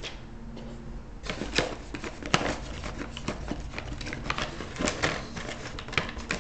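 Packaging and a paper instruction sheet being handled, with irregular rustling and light clicks.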